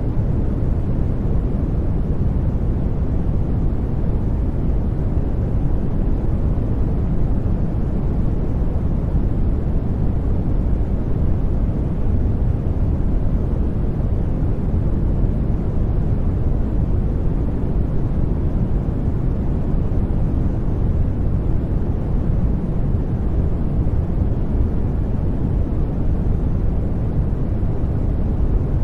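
Steady noise-generator sound: an even, unbroken rush that does not change, deep and heavy in the low end and fading toward the highs.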